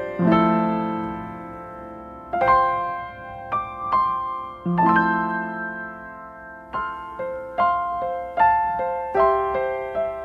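Background music: a piano playing slow chords and then a quicker run of single notes, each note struck and fading away.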